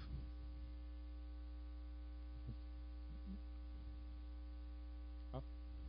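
Steady electrical mains hum with a buzz of many even overtones, running at a low level. A few faint, brief sounds come about halfway through and again near the end.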